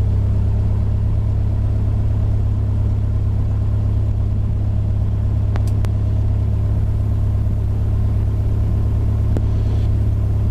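Lycoming IO-360 four-cylinder fuel-injected aircraft engine of a Mooney M-20F idling steadily just after a start, heard from inside the cockpit as a loud, even low rumble. A few faint clicks from panel switches sound about halfway through and near the end.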